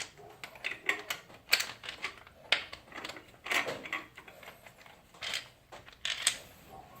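Irregular clicks and light metallic clatter of hand tools undoing Torx bolts on a motorcycle, roughly two sharp clicks a second.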